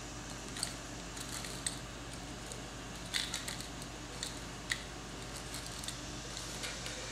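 Sparse, faint metallic clicks and taps, about half a dozen, from a dial-gauge top-dead-center indicator being handled and threaded into a spark plug hole, over a steady low hum.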